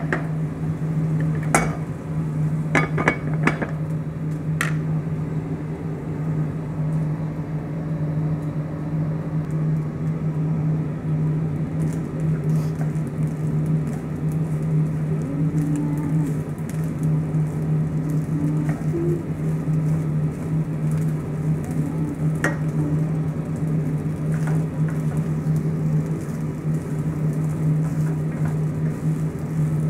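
Wooden spatula stirring food in a frying pan, with soft sizzling and scattered knocks and scrapes against the pan, most of them in the first few seconds. Under it runs a steady low hum.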